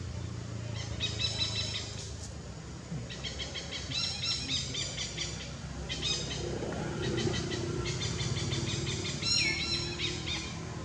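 Birds chirping in repeated quick runs of short high notes, over a low steady background hum.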